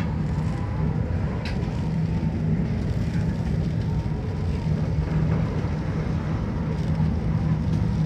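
A ship's engines and machinery giving a steady low drone, with a faint higher hum above it.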